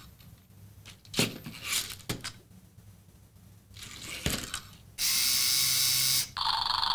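LEGO MINDSTORMS EV3 robot puppy's plastic leg mechanism clicking a few times as its motors shift it from sitting to standing. About five seconds in a loud steady hiss runs for just over a second, then a different steady sound follows near the end.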